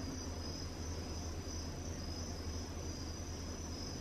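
Crickets chirring steadily, a high pulsing trill, over a steady low hum.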